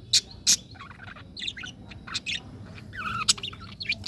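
Budgerigars chirping and warbling: a fast run of short, sharp, high chirps and chattering squiggles, with a couple of louder chirps near the start and another about three seconds in.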